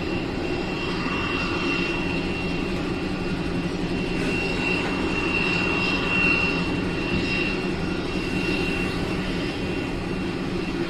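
Steady jet aircraft engine noise: a low rumble under a thin high whine that swells and fades several times.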